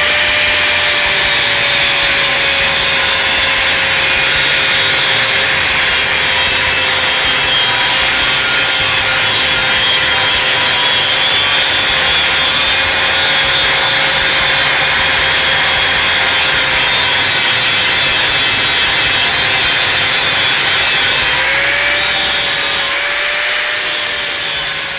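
Grinder running against the steel of a water-heater tank, grinding away the edge where hinges will be welded on: a steady motor whine under a harsh grinding hiss. The pitch dips and recovers briefly near the end.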